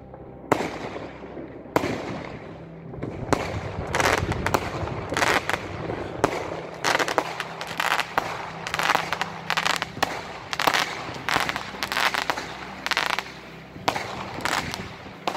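Fireworks and firecrackers banging: dozens of sharp cracks and bangs, scattered at first and coming thick and fast from about three seconds in.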